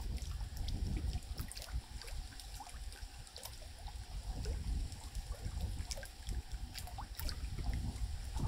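River water trickling and splashing, with scattered small drips and a steady low rumble underneath.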